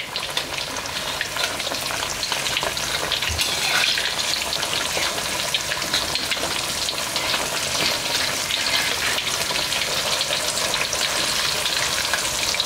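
Rohu fish pieces deep-frying in hot oil in a kadhai: a steady, dense crackling sizzle that swells a little in the first second or so. The pieces are turned over with a perforated steel spoon.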